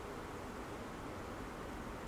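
Faint dry-erase marker rubbing along a whiteboard as a line is drawn, over a steady background hiss.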